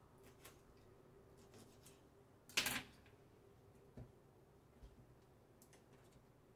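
Stiff broom scrubbing a wet tiled floor, heard faintly, with one louder short scrape about two and a half seconds in and a light knock about a second later.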